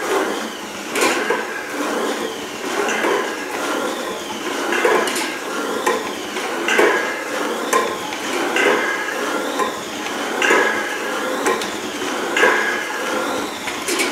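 A homemade kayak ergometer built from a NordicTrack ski machine, being paddled. The flywheel and cord pulleys whir and clatter, and a thin whine rises and falls about once a second with each alternating paddle stroke.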